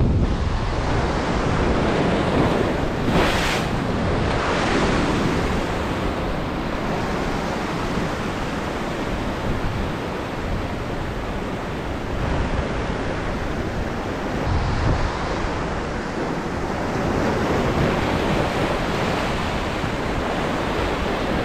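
Ocean surf breaking against a rocky shoreline and washing back, the rush of water swelling and ebbing, with a louder wash about three seconds in.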